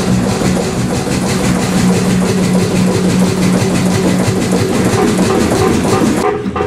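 Kromhout 2H3 marine diesel engine running steadily at slow revs, heard in the engine room. About six seconds in the sound changes to its exhaust puffing at the outlet in an even beat of about three puffs a second.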